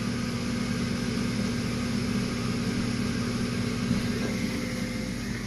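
New draft inducer motor on an 80% gas furnace running with a steady, even hum and sounding a lot better, with no racket from an unbalanced wheel.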